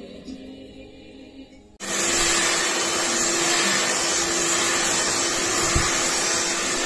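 Handheld hair dryer switched on about two seconds in, blowing loud and steady with a constant motor hum, drying freshly washed hair.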